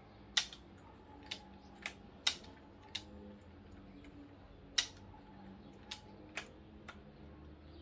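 Plastic clicks and snaps from the lever-action mechanism of a LEGO Winchester 1887 replica being worked by hand: about nine sharp clicks, spaced irregularly. The action is sticking because something is jamming it.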